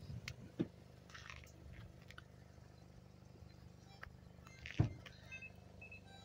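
Car engine idling with a steady low hum, with a single thump about five seconds in and a few short high beeps repeating near the end.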